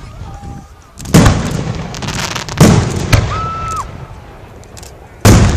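Aerial fireworks shells bursting: three loud booms, about a second and a half to two and a half seconds apart, with a smaller bang between the second and third. Each boom is followed by a rumbling, crackling tail.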